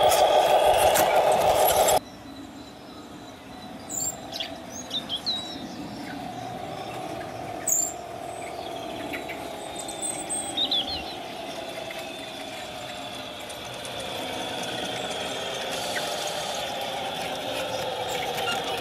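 Radio-controlled Tamiya Scania R730 truck's electric drive whining loudly close up, cut off abruptly about two seconds in. After that a few birds chirp while the truck's motor whine comes back faintly and slowly grows louder, shifting in pitch as it approaches.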